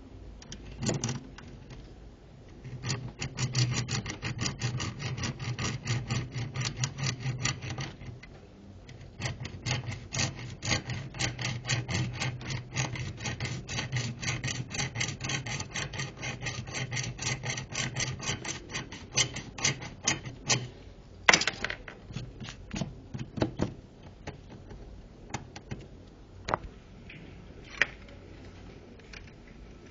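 Steel wire survival saw rasping through material in rapid back-and-forth strokes, several a second, in two long runs with a short break between them. After the sawing stops come a few sharp knocks and clicks.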